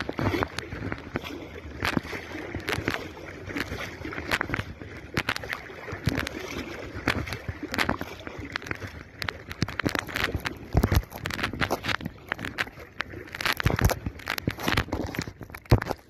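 Shallow seawater sloshing and splashing around legs wading through it, in irregular splashes with short pauses, and a louder knock near the end.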